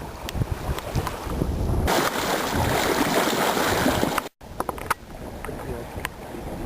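Wind noise on the microphone aboard a sailboat, with water noise and a few light clicks. The sound changes abruptly about two seconds in and cuts out for a moment just after four seconds.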